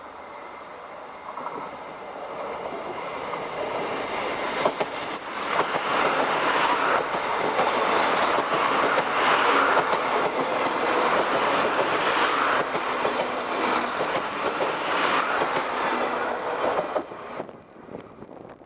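Irish Rail 29000 Class diesel multiple unit approaching and passing close by. The sound builds up, then comes a run of sharp clicks from the wheels on the rails as the carriages go by. It drops away suddenly near the end as the last car passes.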